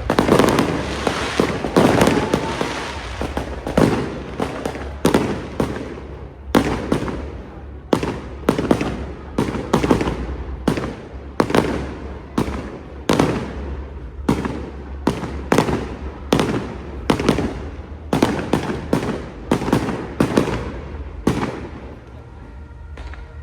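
Fireworks display: a rapid barrage of aerial firework bangs, about one to two a second, each trailing off, that stops about 21 seconds in.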